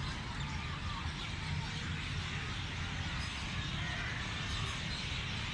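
Park ambience: birds chirping faintly in short calls over a steady low rumble and a dense background hiss.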